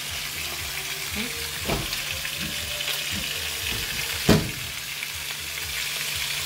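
Pieces of Guyana salmon frying in hot oil in a skillet, sizzling steadily. A sharp knock sounds about four seconds in.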